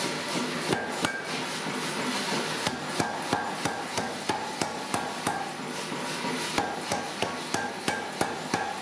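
Mechanical power hammer striking a red-hot layered Damascus billet (15N20 and EN42J steel): two blows about a second in, then a steady run of blows at about three a second, forge-welding the stack together. A steady machinery noise runs behind the blows.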